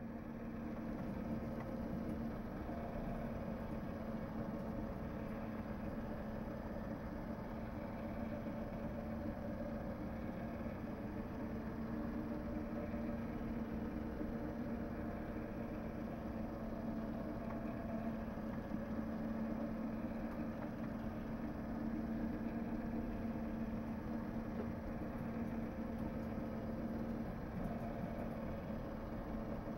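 Small electric motor of a rotating display turntable running with a steady, even-pitched hum.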